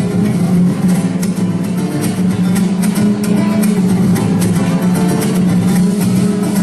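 Mariachi band playing an instrumental passage, driven by quick, rhythmic strumming of guitars.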